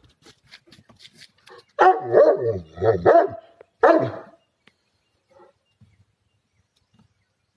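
A dog barking: a short run of loud barks between about two and four and a half seconds in, then it goes quiet apart from faint small sounds.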